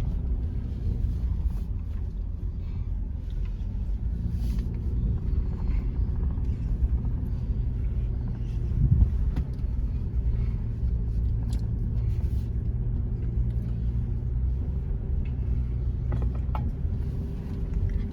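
Toyota 4Runner running slowly over a rough off-road trail, heard from inside the cab: a steady low engine and road rumble with scattered knocks and rattles, and a louder jolt about nine seconds in.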